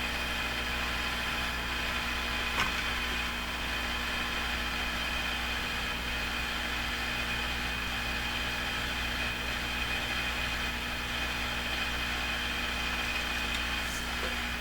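Heat gun blowing steadily as it shrinks heat-shrink tubing onto a wire joint, with a faint click about two and a half seconds in and another near the end.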